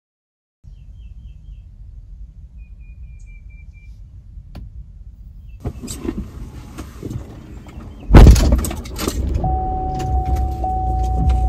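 Knocks and handling noise inside a car, with a loud thump about eight seconds in, then a steady low rumble with a thin steady tone over it.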